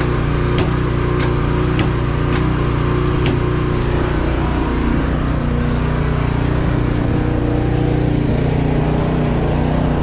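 Diesel engine running steadily at an even speed, with sharp ticks about every half second over the first few seconds.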